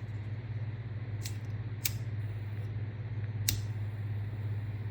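Three sharp, separate clicks, about a second and a half in, near two seconds, and about three and a half seconds in, over a steady low hum.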